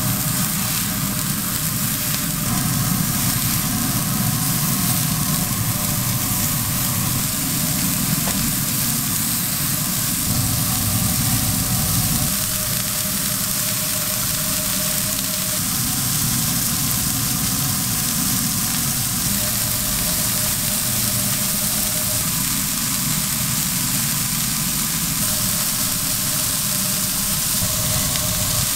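Balls of raw ground beef sizzling on a hot flat-top griddle: a steady frying hiss over a steady low mechanical hum.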